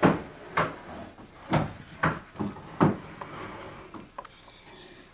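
A few short, irregular knocks or thumps, about six in three seconds, the first the loudest.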